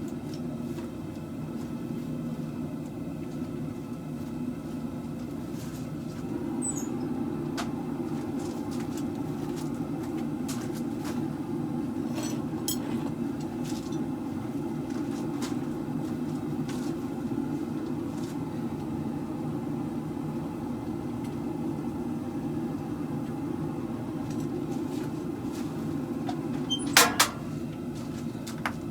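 A blacksmith's forge running with a steady low roar, with a few light clicks and one loud metallic clank near the end.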